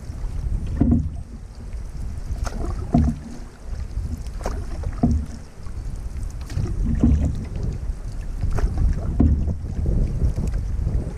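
Canoe being paddled across a choppy lake. Wind rumbles on the microphone, and water splashes at a roughly even beat, about once every second or two.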